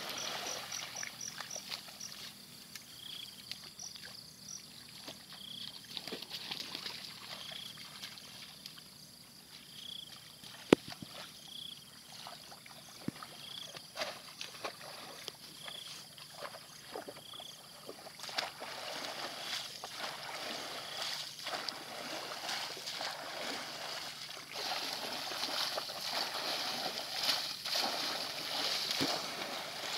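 Water splashing and sloshing as bamboo plunge-basket fish traps are pushed down into shallow, grassy floodwater and people wade through it, busier in the second half. A short high chirp repeats every second or two through the first half, and there is one sharp click about eleven seconds in.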